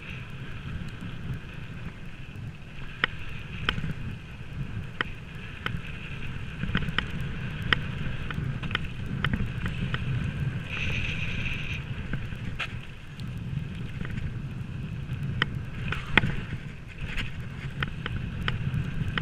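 Mountain bike rolling fast down a packed-dirt trail: a steady rumble of tyres and wind, with frequent sharp clicks and rattles from the bike over bumps and a brief high-pitched buzz about eleven seconds in.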